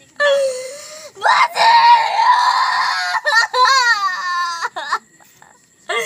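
A young woman's acted hysterical wailing and sobbing: several loud, high-pitched cries whose pitch slides up and down, one held for a couple of seconds, breaking off about a second before the end.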